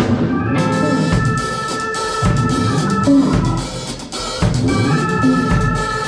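Live band playing an instrumental passage: held keyboard chords over drum kit and electric bass, the full band coming in about half a second in.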